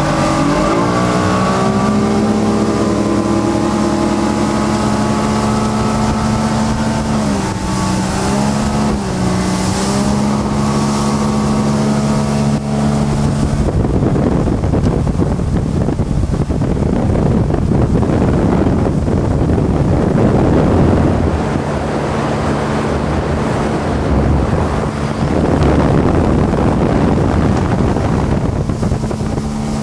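1995 Johnson 200 hp two-stroke V6 outboard running the boat at speed, climbing in pitch as it is throttled up at the start, then holding steady with a brief dip about eight seconds in. From about fourteen seconds in, wind on the microphone and rushing water dominate, with the engine fainter beneath.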